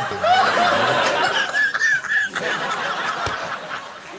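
Several people laughing hard, with high-pitched giggling about two seconds in; the laughter dies down toward the end.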